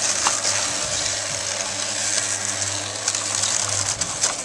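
Motorised exterior roller shutter lowering: a steady low hum with the slats clicking and rattling as they run down and close up.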